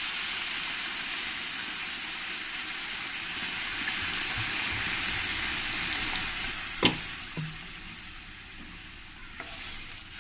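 Water poured into a hot kadai of frying potato and kohlrabi pieces, hissing and sizzling steadily, then easing off in the last few seconds as it settles into a simmering liquid. A single sharp tap about seven seconds in.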